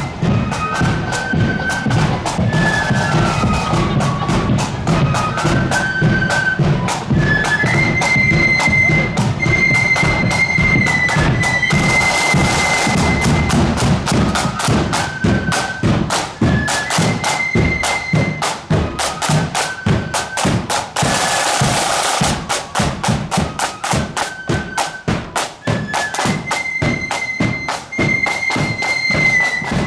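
Marching flute band playing a tune: a high flute melody over fast, steady snare drumming and bass drum. Cymbal crashes come in about twelve seconds in and again about twenty-one seconds in.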